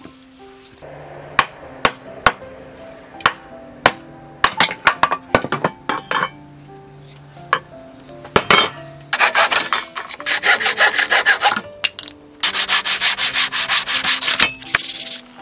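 A wooden strip rubbed fast back and forth on sandpaper, in long runs of quick scratchy strokes from about nine seconds in, the loudest sound. Before that, scattered sharp clicks and knocks, with soft background music throughout.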